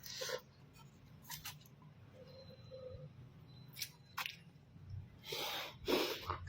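Eating noises: a few short, scattered clicks and rustling bursts, the longest about five seconds in.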